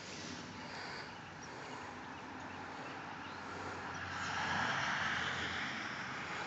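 An engine running with a low steady hum, getting louder for a second or two from about four seconds in.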